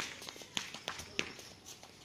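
Light, irregular footsteps of children running on wet concrete, a scatter of short slaps.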